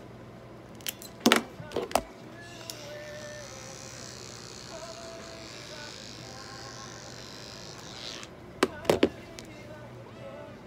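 Small electric pet clipper buzzing for about five seconds as it trims the hair between a cat's paw pads. Sharp clicks and knocks come just before it starts and just after it stops, the loudest sounds here.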